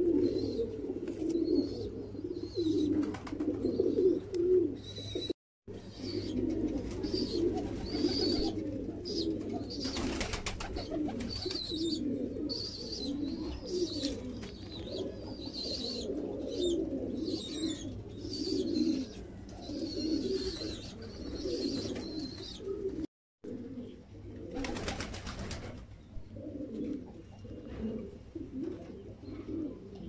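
Domestic pigeons cooing, many overlapping low burbling calls running on without a break. The sound cuts out briefly twice.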